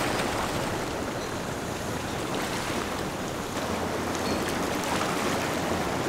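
Seawater washing and splashing against jetty rocks: a steady, even rush of water.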